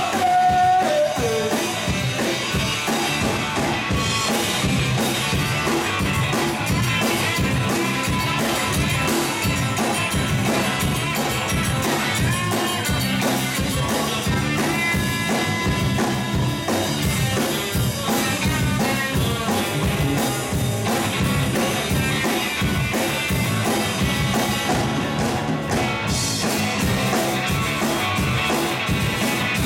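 Rock band playing live, with a drum kit and guitars keeping a steady driving beat.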